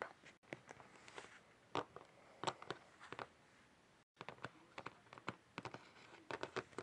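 Light, scattered clicks and taps of plastic Littlest Pet Shop figurines being handled and set down on a hard surface. There is a brief drop to silence about four seconds in.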